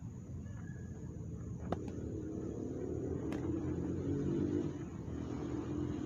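A motor vehicle's engine running close by, coming up about two seconds in and holding steady, with two sharp slaps of gloved punches landing, about a second and a half apart.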